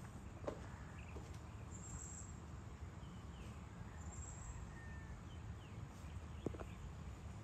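Faint rural evening ambience: an insect gives a short, high chirp about every two seconds over a low, steady background hum. A few brief bird calls and two faint knocks, one near the start and one near the end, sound in the distance.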